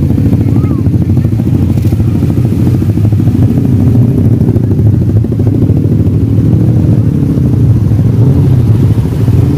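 An engine running steadily at close range, its pitch drifting slightly up and down.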